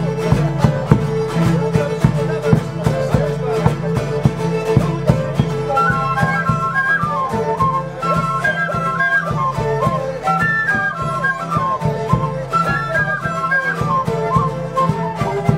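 Ecuadorian folk band playing: a steady drumbeat under guitars and violin, with a flute melody standing out from about six seconds in.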